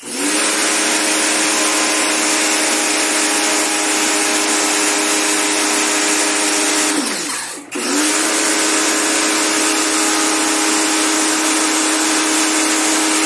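Electric pressure washer running, its motor humming steadily under the hiss of the water jet spraying the fins of a split air conditioner's indoor coil. About seven seconds in the trigger is let go: the motor's pitch falls and it stops for a moment, then it starts up again.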